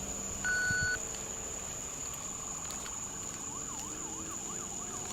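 A short electronic beep about half a second in, then a faint police siren in a fast rising-and-falling yelp, about three sweeps a second.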